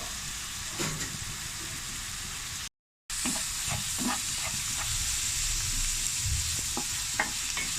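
Ground-meat kefta with onion and peppers sizzling steadily in a frying pan, with short knocks and scrapes of a spoon stirring it. The sound cuts out completely for a moment about three seconds in, at an edit.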